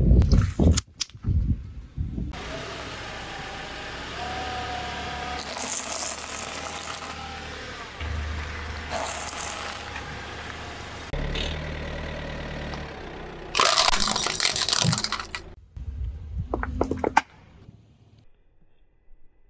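A car's tyre rolling slowly over objects on pavement and crushing them. Squelching and popping as water beads burst, then brittle corn snacks crack and crunch, over the low hum of the car's engine, with a loud crackling crunch about two-thirds through.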